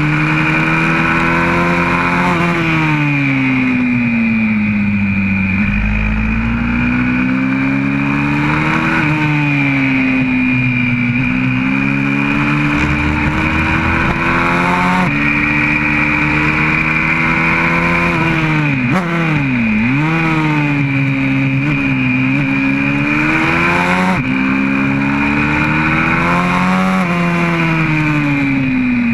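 Single-cylinder four-stroke engine of a YCF 125cc pit bike, heard from on board at racing pace. The revs rise and fall over and over through gear changes and corners, with a sharp drop and climb back about two-thirds of the way through.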